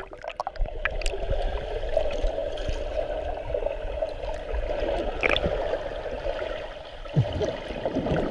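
Swimming-pool water heard from a submerged camera: a steady muffled rushing with gurgles and small clicks, and louder bubbling near the end as breath is blown out underwater.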